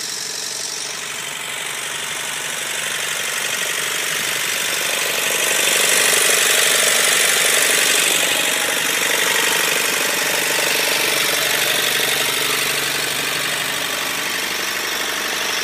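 Fairmont railroad speeder's engine running steadily after being started, growing somewhat louder in the middle and then easing back a little.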